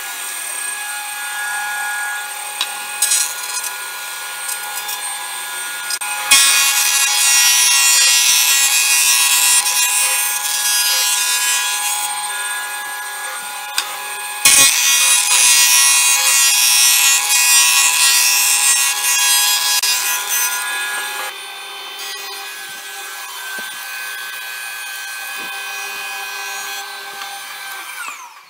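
Planer-thicknesser running steadily while a hard-maple board is machined flat. Two passes through the cutter block, about 6 and 14 seconds in, each make a loud cutting noise lasting about six seconds over the machine's hum.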